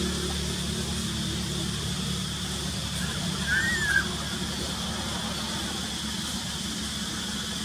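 Steady forest background, a constant high-pitched drone over a low hum, with one short high call that rises and falls about three and a half seconds in.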